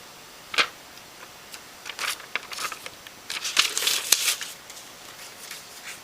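Handling noise: a sharp click about half a second in, then an irregular run of rustling and crinkling, like paper or plastic being handled, over a steady hiss.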